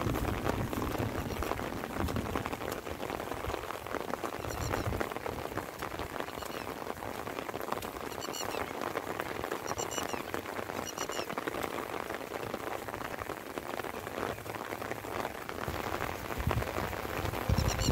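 Light rain falling in a steady patter, with short high chirps coming several times.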